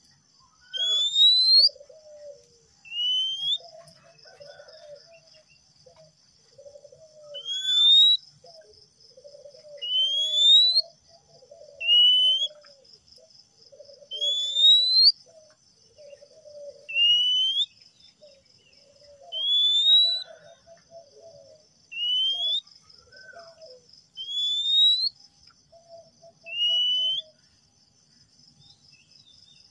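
Male Oriental magpie-robin (kacer) singing: loud, rising whistled notes about every two to three seconds, each run together with lower chattering notes.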